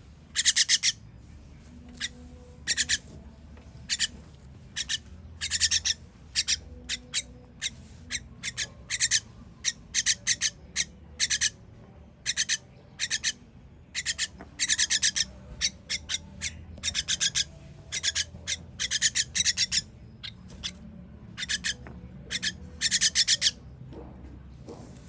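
Baby birds' begging calls at feeding: short, high-pitched, raspy calls repeated in quick clusters again and again.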